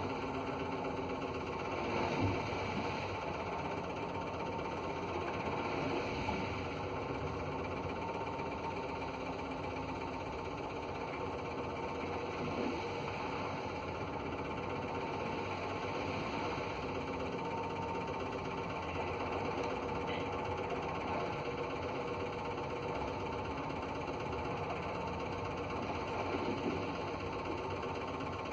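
Ship's engine running steadily while under way, a constant droning hum with hull vibration heard from inside the cabin, with a few soft knocks along the way.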